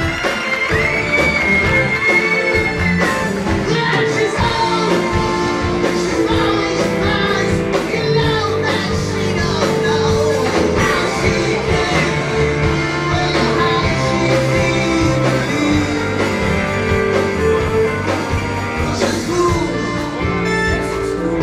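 Rock band playing live, with electric guitars, bass, drum kit and keyboards, and a sung vocal line over it.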